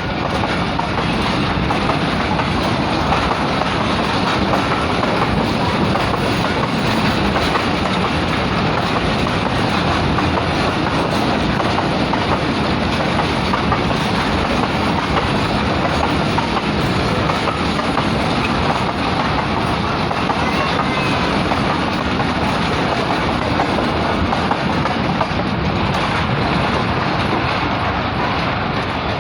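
Long oil train of tank wagons passing at good speed, its wheels clattering over the rails in a loud, steady rush.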